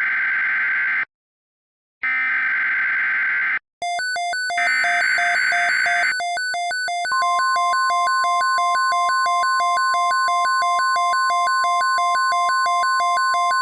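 NOAA Weather Radio emergency alert tones. The end of one SAME digital header burst and two more buzzy, screeching data bursts are followed by an electronic alarm flipping rapidly between two pitches, which starts under the third burst. From about seven seconds in, the steady 1050 Hz weather radio warning tone sounds together with it.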